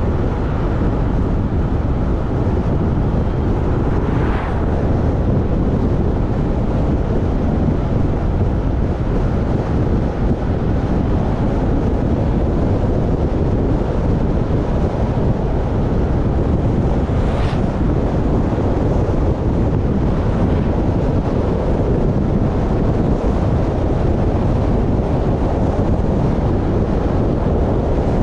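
Steady wind buffeting on the microphone over the rumble of a vehicle moving along an open road. Two brief faint ticks come through it, about four seconds in and again about two-thirds of the way through.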